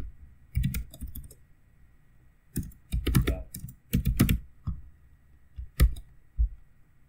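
Computer keyboard typing in short bursts of keystrokes, with pauses between the groups.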